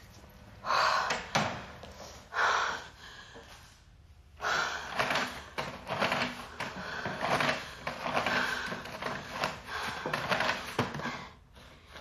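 Paper towels pulled from a wall-mounted dispenser and crumpled in the hands: rustling and crinkling paper, in two short bursts at first, then dense and rapid from about four seconds in.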